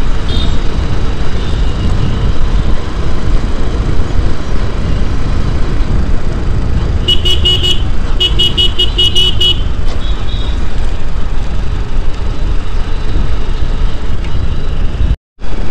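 Wind rumbling over the microphone of a moving motorcycle, with engine and road noise underneath. About seven seconds in, a high-pitched horn beeps in a rapid string of short toots, in two runs lasting about two and a half seconds together.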